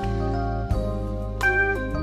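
Background music: gentle keyboard and organ-like instrumental with sustained notes changing every half second or so.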